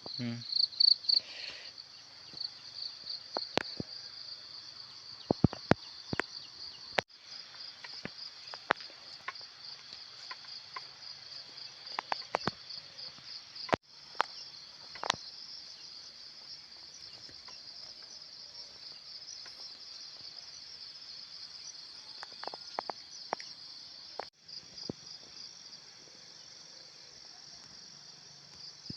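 A steady, high-pitched chorus of insects trilling, with scattered short clicks and ticks throughout. The chorus cuts out for an instant three times.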